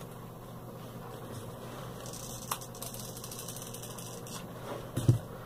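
Steady low room hum with faint handling noises from crafting at a tabletop: a sharp click about halfway through and a soft knock near the end.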